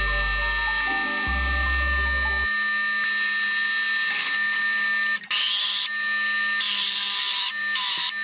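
Drill press drilling holes in a steel disc: a steady machine whine, with stretches of hissing cutting noise in the second half. Background music plays along, its low bass notes stopping about two and a half seconds in.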